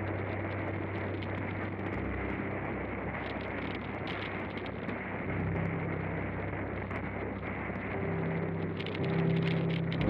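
Steady wind and road rush from a camera riding on a bicycle along an asphalt road, with faint low music notes held underneath that change every few seconds.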